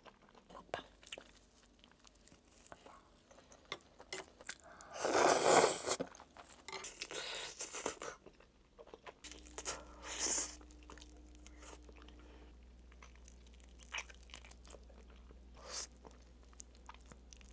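Close-up eating sounds of bone-in spicy chicken feet: bites and chewing with small wet clicks, and a louder, noisier burst of about a second around five seconds in.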